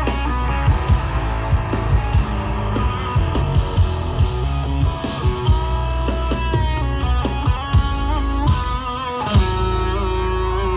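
Live rock power trio playing: electric lead guitar with bent, wavering notes over bass guitar and drum kit. About nine seconds in the band lands a big accented hit, and a chord then rings on over a held bass.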